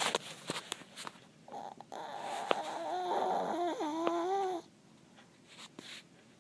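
A Chihuahua snoring in its sleep: one long snore with a wavering, whistle-like pitch, lasting about three seconds from about a second and a half in, after a few faint clicks.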